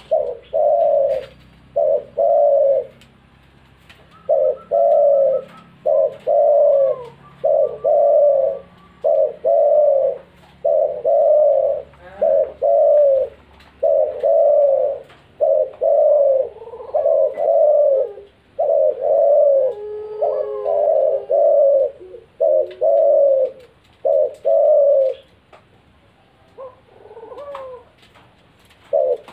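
Spotted doves cooing over and over, low hooting notes coming in quick pairs and runs with brief gaps. The cooing stops for a few seconds near the end, with only a fainter call, before one more coo.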